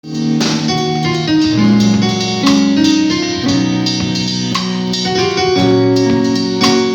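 Gospel band music: sustained keyboard-like chords that change about once a second, with a few drum or cymbal hits.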